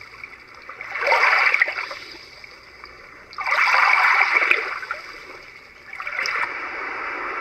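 Recorded ocean waves playing from the Roffie white noise sound machine's small speaker. Three swells of surf rise and fall, each a couple of seconds long.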